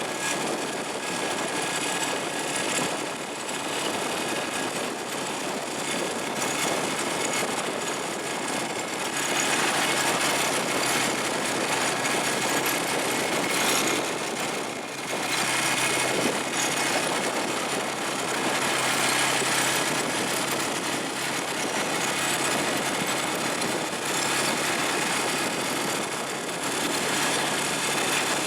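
ATV engine running steadily under way, its level swelling and easing a few times.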